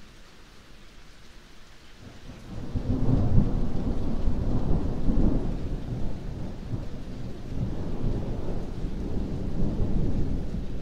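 Thunderstorm: rain falling, at first faint, then about two and a half seconds in a long low rumble of thunder builds and rolls on, swelling again near the end.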